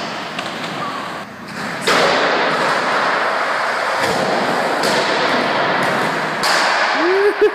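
Skateboard wheels rolling on a concrete floor, a steady rough noise that starts sharply about two seconds in, with a few thuds of the board on the ramps. Near the end, a brief wavering call rises and falls.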